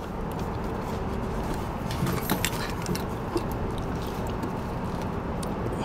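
Start relay being pushed by hand onto a Jiaxipera refrigerator compressor's terminal pins: a few light clicks and scrapes about two seconds in, over steady background noise.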